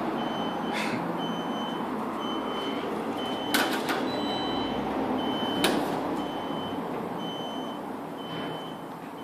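A short, high electronic beep repeating about every two-thirds of a second over a steady hum, with a few sharp clicks and knocks as a beagle paws at an elevator's metal door and call button.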